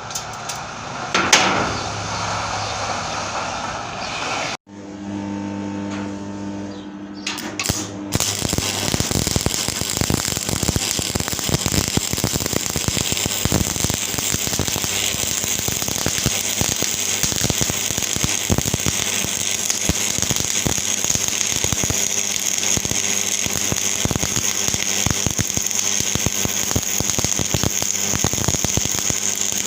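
Electric stick arc welding: the arc crackles and sizzles steadily from about a quarter of the way in, after a low electrical hum and a few short strikes.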